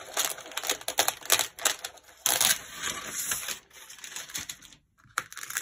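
Sheet of tracing paper crackling and rustling as it is peeled off and pulled away from the watercolour paper, with a louder rush of paper noise about two seconds in and a few scattered crackles near the end.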